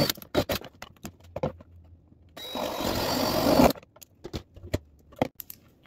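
Cordless drill with a paddle bit running for about a second and a half, boring through the thin wall of a plastic storage bin, with scattered clicks and knocks of the plastic bin being handled before and after.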